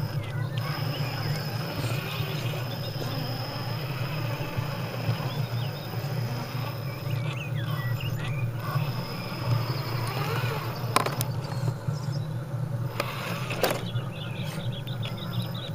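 Radio-controlled scale crawler truck creeping down a dirt rut, its electric motor and gears giving a steady faint whine. Two sharp knocks come in the second half as it bumps over the ground.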